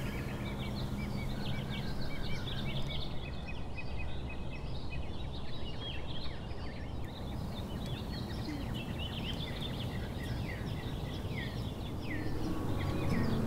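Many small birds chirping and calling in quick, short notes over a steady low rumble of outdoor background noise; music begins to come in near the end.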